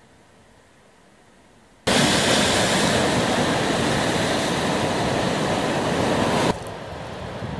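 Faint steady hiss, then about two seconds in a sudden loud, even rush of heavy surf breaking and washing over the boulders of a rocky shore. The rush drops to a lower level about six and a half seconds in.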